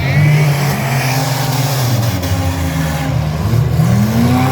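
Several stock car engines running and revving together, their pitches overlapping and shifting; one revs up, climbing in pitch, near the end.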